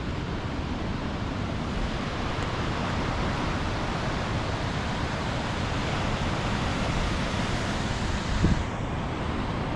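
Ocean surf breaking on a rocky shore, a steady wash of noise, with wind buffeting the microphone and one brief louder gust near the end.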